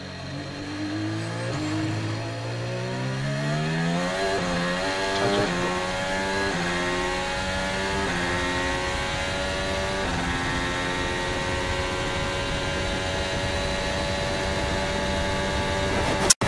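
Formula 1 car's 1.6-litre turbocharged V6 hybrid engine (Honda-built, in an AlphaTauri) accelerating hard out of a slow corner. It climbs through a run of quick upshifts, each a short drop and rise in pitch, then runs steady at high revs in top gear. A single sharp crack comes just before the end.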